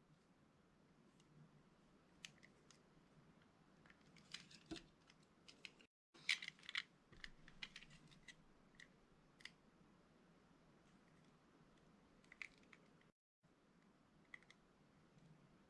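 A blade cutting through soft bar soap, making faint scattered crisp crackles and clicks that bunch into quick runs about four seconds in and again just after six seconds.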